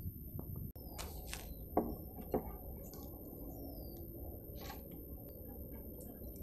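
Quiet handling sounds as raw lamb liver is lifted out of a plastic colander and set into a ceramic bowl: a few short rustles and two light knocks about two seconds in, over a low steady background.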